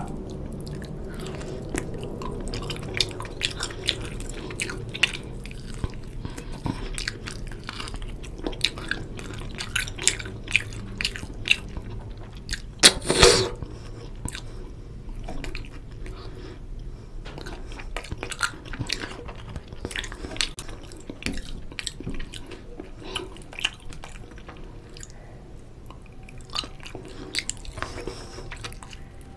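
Close-up eating sounds of a man eating mutton curry and rice by hand: chewing with many small clicks throughout, and one louder half-second sound about halfway through.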